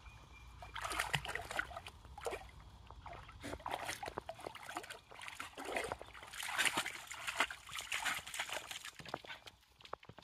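A dog splashing and sloshing through shallow river water as it wades ashore, in irregular bursts that die down near the end.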